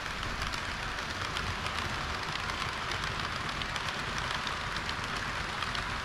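HO-gauge model train running on the track: a steady whirr of wheels and motor with a thick patter of fine clicks from the wheels on the rails.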